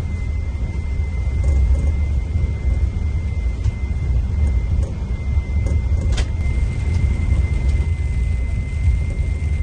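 Scania diesel engine of a Marcopolo Paradiso 1800 DD double-decker coach running steadily with a deep low rumble. A thin steady high whine sits over it, and a single click sounds about six seconds in.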